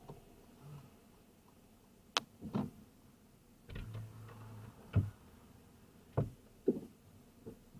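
A handful of sharp clicks and knocks inside a stopped car's cabin, with a brief low hum about four seconds in.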